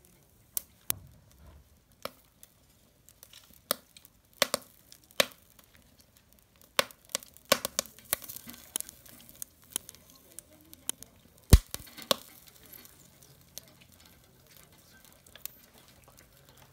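Wood fire crackling in a drum barbecue: irregular sharp pops and cracks, the loudest about eleven and a half seconds in.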